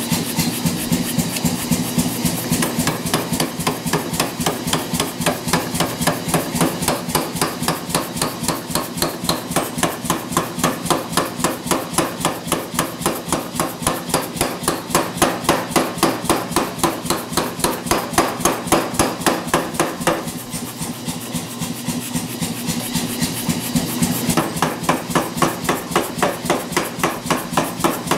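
Power hammer striking a red-hot 3/4-inch steel bar in a rapid, steady run of blows, drawing it out and tapering it into a tong rein. The blows go lighter for a few seconds about three-quarters of the way through.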